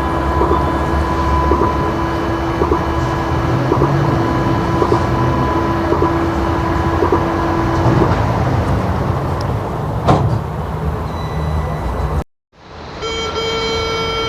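Mexico City Metro train's door-closing buzzer sounding as one steady tone for about eight seconds over the train's low rumble, followed by a single knock as the doors shut about ten seconds in. After a brief break, another train's higher-pitched door buzzer starts near the end.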